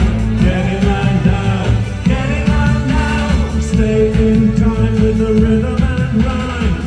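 Live synth-pop band performance over a PA: a repeating synthesizer bass line and drums with sung vocals.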